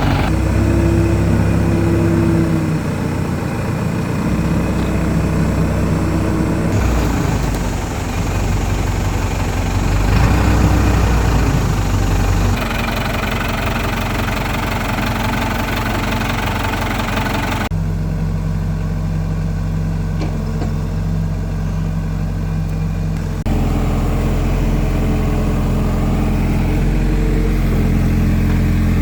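Engine of a digging machine running steadily at work, its tone changing abruptly four times, about every five to six seconds.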